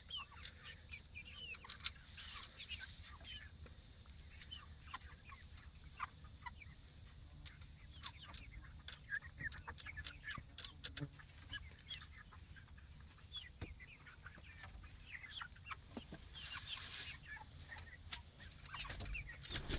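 Chickens clucking quietly, with scattered sharp little ticks.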